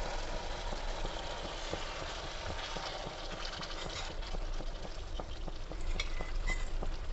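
Vinegar and oil sizzling and crackling in a hot stainless steel kadai of stink bean seeds and spices, with a metal spatula stirring and scraping the pan from about halfway through.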